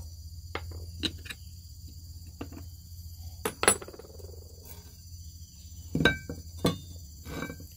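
Small metal parts of a brush cutter head clinking and knocking as the bolt, washers and trimmer-line disc are taken off and set down on wooden planks: scattered clicks, the sharpest about halfway through and two more near the end. Insects chirr steadily in the background.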